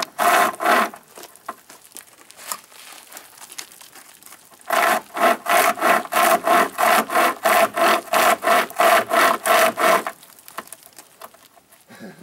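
Homemade pocket chainsaw, a bare chainsaw chain with paracord handles, pulled back and forth through a tree limb by hand, rasping on each stroke. A few strokes come at the start, then a lull, then fast sawing at about three strokes a second from about five seconds in until it stops near ten seconds.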